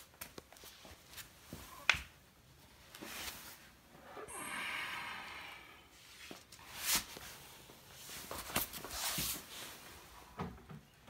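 Scattered handling noises: a sharp click about two seconds in, a rustle lasting just over a second, and several short brushing sounds.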